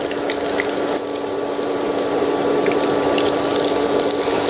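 Oil sizzling and crackling as potato, minced-meat and egg patties shallow-fry in a pan, with scattered sharp pops of spattering oil. A steady low hum sits underneath.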